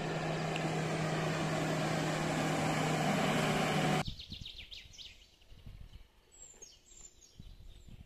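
A loud, steady rushing noise with a low hum cuts off suddenly about four seconds in. After that it is quiet outdoor ambience with small birds chirping.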